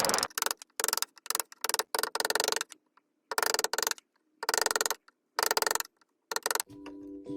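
About ten short rasping strokes of a hand tool working wood, unevenly spaced with silent gaps between them; music comes in near the end.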